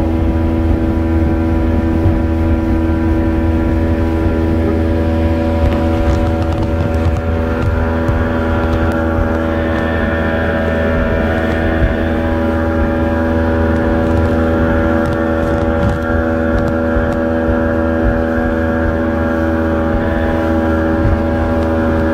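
Motorboat engine running steadily at cruising speed.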